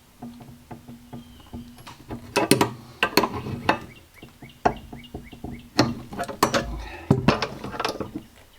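Sharp, irregular clicks and knocks of a wrench working on quarter-turn compression fittings as they are tightened, starting about two seconds in.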